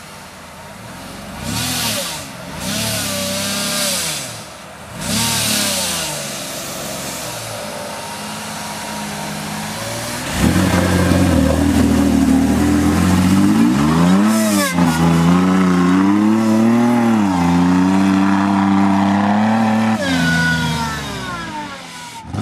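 Off-road 4x4 truck's engine revving hard in bursts as it climbs a muddy slope, with spurts of noise in the first few seconds. About halfway through it gets much louder and the revs keep rising and falling, with a single knock a few seconds later.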